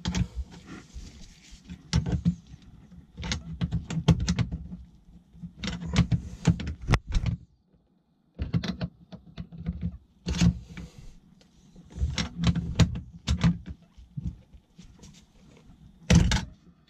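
Metal lock nut on an electrical cable connector being threaded on and tapped tight: clusters of sharp metal clicks and knocks with short pauses, and one harder knock near the end.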